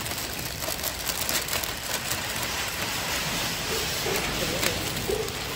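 Steady hiss-like background noise of a busy store, with a few faint voices about four seconds in.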